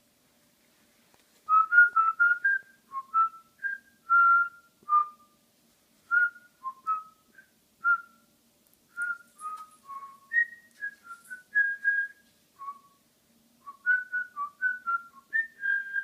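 Cockatiel whistling a long string of short, clear notes that hop up and down in pitch, starting about a second and a half in and running on in irregular phrases.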